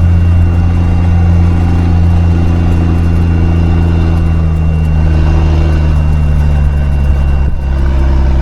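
5-ton military truck's engine running steadily as the truck is driven, a deep low drone, with a brief dip in engine sound near the end.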